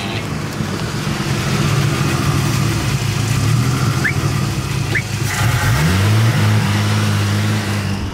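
Chevrolet Opala's six-cylinder engine running steadily, then revving up about six seconds in and holding at the higher speed.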